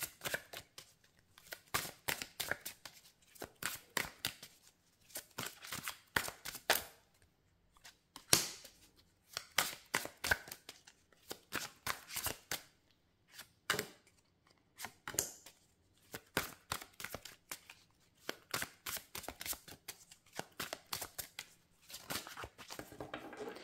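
A deck of tarot cards shuffled by hand, then fanned out on a table with cards drawn from the spread: an irregular run of short card flicks, slaps and rustles.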